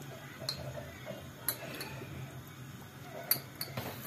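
Faint scattered ticks, about five in all, over a low steady hum, as cooking oil goes into a stainless steel pot of chopped red onions on a gas burner.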